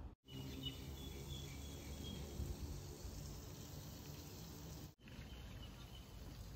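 Faint outdoor garden ambience: short high chirps over a low steady hum, dropping out for a moment near the start and again about five seconds in.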